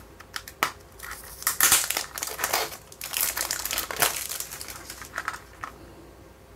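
Clear cellophane wrapper crinkling as it is torn and pulled off a minidisc's plastic case, in a run of crackling bursts that dies away near the end.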